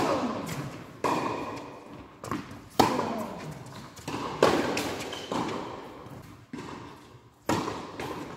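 Tennis ball impacts on racket strings and the hard court: a series of sharp thuds, roughly one a second, each ringing on in the echo of a large indoor tennis hall.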